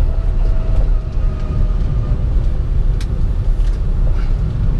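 Cabin noise of a moving Citroen Ami electric car: a steady, loud low rumble from road and body, with a faint steady whine above it. There is a sharp click about three seconds in.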